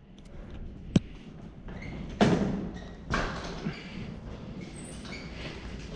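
A metal corridor door and a bicycle being handled: a sharp latch click, then two loud clattering thuds about a second apart, over steady rustling movement.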